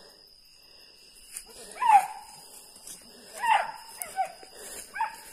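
Hunting dog barking: four short, sharp barks, the loudest about two seconds in and the others spaced about a second apart after it.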